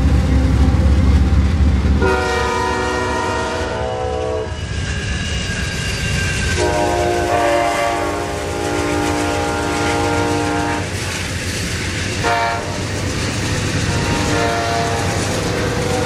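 A train's low rumble for the first two seconds, then a locomotive air horn sounds the grade-crossing signal: long, long, short, long. Underneath, a passenger train rolls past with clickety-clack from the wheels.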